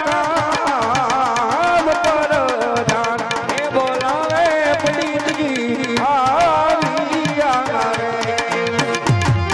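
A man sings a Gujarati folk-devotional song through a PA system with a wavering, ornamented melody, over quick tabla drumming. Deeper low drum strokes come in near the end.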